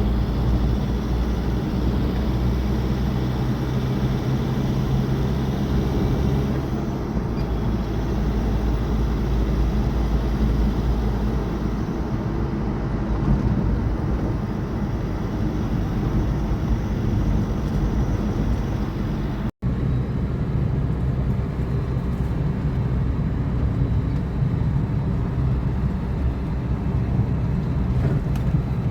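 Steady engine hum and road noise of a motor vehicle driving along a mountain road, broken once by a split-second dropout about two-thirds of the way through.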